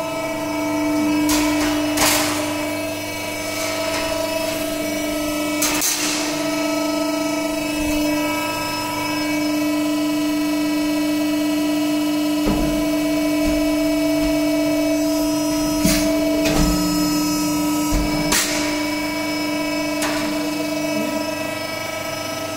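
Harsle CNC hydraulic press brake running with a steady machine hum, with a few sharp clicks spread through it.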